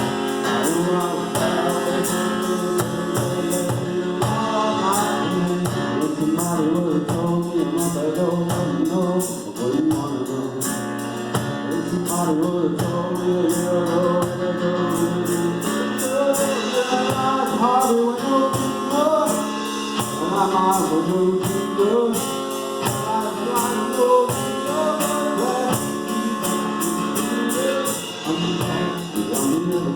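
Live acoustic duo playing a song: singing over acoustic instruments with a steady percussion beat.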